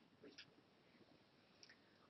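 Near silence, with a few faint short strokes of a marker on a whiteboard in the first half second and one more near the end.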